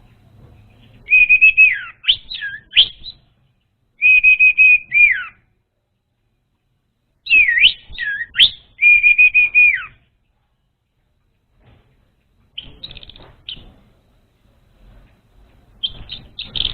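Orange-headed thrush song: five phrases of rapid, buzzy whistled notes held on one pitch and then dropping, mixed with quick rising-and-falling sweeps, with pauses of one to two seconds between phrases; the fourth phrase is fainter.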